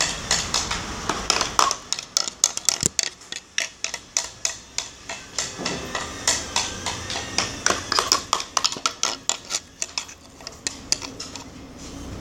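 A small plastic doll being hopped and tapped along a hard surface, quick irregular clicks of a few taps a second, thinning out near the end.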